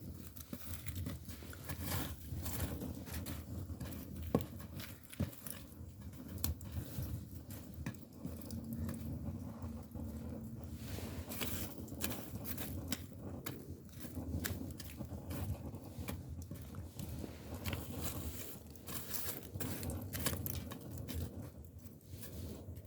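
Split bamboo firewood burning in a wood-fired agungi firebox: irregular crackling and sharp pops over a steady low rumble of the fire.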